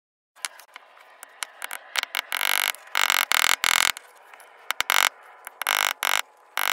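Mallet striking a leather stamping tool, a beveler, on dampened carved leather over a marble slab: irregular sharp taps starting about half a second in, with several runs of quick strikes that are the loudest part.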